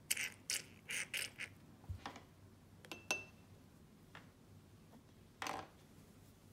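A plastic pipette squeezed against a Pilot Parallel pen's nib, water and air spluttering through the nib in about five short squirts. These are followed by a few light clicks and a brief rustle as the pen parts are handled.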